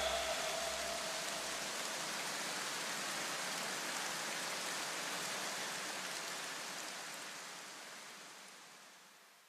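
Steady rain-like hiss of noise left in the soundtrack after the electronic music stops, fading out over the last couple of seconds. A low bass hum from the music dies away in the first two seconds.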